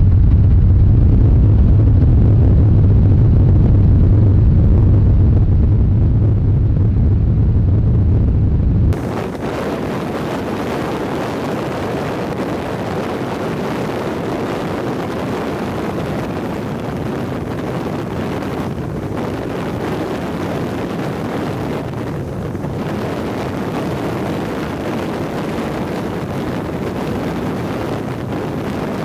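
A car driving on a highway: a deep, steady road rumble heard from inside the car, which cuts off abruptly about nine seconds in and gives way to a steady rushing hiss of wind and road noise.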